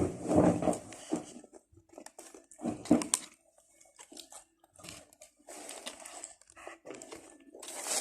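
A person chewing and crunching food close to the microphone, with scattered bites and crackles.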